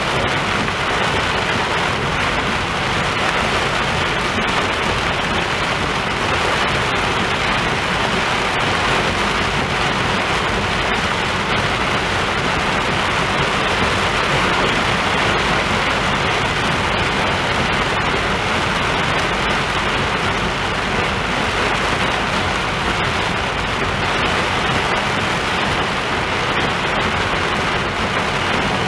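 Heavy rainstorm downpour pouring steadily, with the hiss of tyres on the soaked road.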